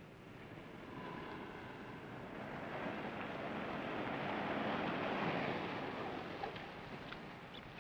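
A car driving by on a street: a rushing engine and road noise that swells to its loudest around the middle and fades away, with a few light clicks near the end.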